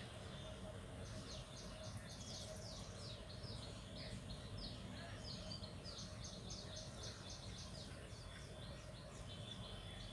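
Small birds chirping rapidly, many short high downward-sliding notes a second, over a faint steady low rumble.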